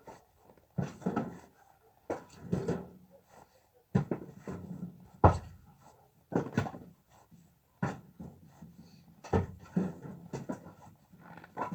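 Split firewood logs knocking as they are dropped and stacked, about a dozen wooden clunks at irregular intervals of roughly a second.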